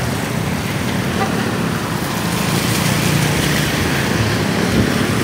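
Motor scooters riding past through shallow floodwater on a wet road: engines running with a steady wash of tyre and water noise, growing a little louder as they pass.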